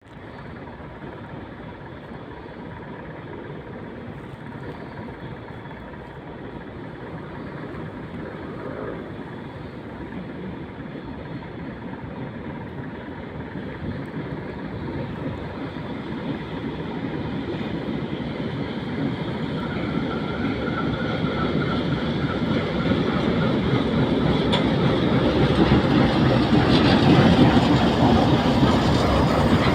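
ChME3 diesel shunting locomotive and its freight train approaching: the six-cylinder diesel engine and rolling wheels grow steadily louder as the train nears.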